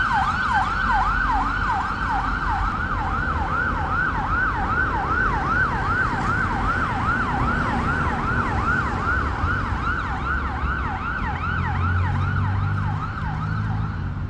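UK emergency vehicle siren on the fast yelp setting, sweeping rapidly between a high and a low pitch about three times a second. It grows fainter over the last few seconds as a vehicle engine rumbles underneath.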